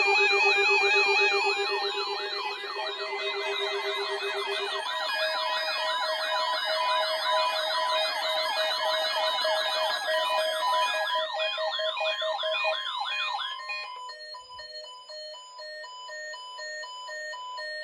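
Several weather alert radio receivers' electronic alarms sounding at once: fast warbling siren tones over steady pulsing beeps. The alarms drop out one after another: a low pulsing tone stops about five seconds in, and the warble cuts off a little past the middle. Only the beeping goes on near the end. The alarms are set off by the weather service's activation of the warning alarm for its weekly test.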